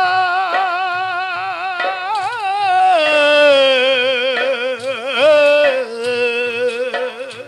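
Telugu burrakatha folk-ballad singing: a singer holds long, wavering notes on a drawn-out melismatic line, the pitch stepping down about halfway through, over a faint steady low drum beat.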